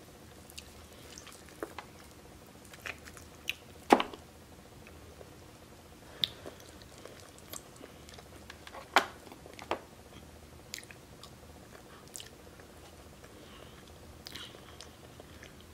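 A person eating a seafood boil by hand: quiet chewing, with scattered sharp clicks and taps as food is pulled apart and picked from a glass bowl. The loudest come about four and nine seconds in.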